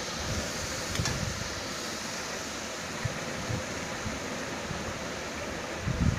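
A pan of chopped greens being stirred on the stove: a steady hiss with a few dull knocks of the stirring spoon, the strongest near the end, and a short click about a second in.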